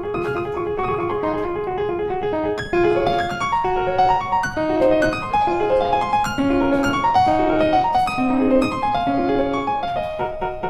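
Background piano music: a repeated figure of notes, then from about three seconds in a livelier, louder melody.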